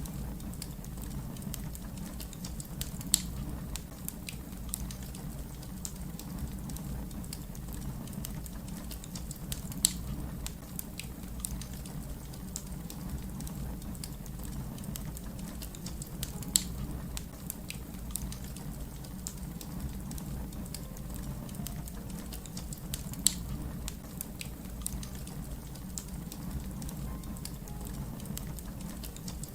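Wood fire crackling over a steady low rumble, with four sharper pops spaced about six to seven seconds apart.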